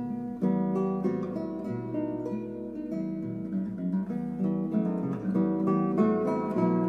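Background music on acoustic guitar, a run of plucked and strummed notes.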